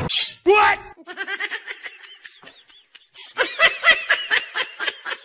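A woman laughing in a long run of quick giggling bursts that grow louder about three and a half seconds in.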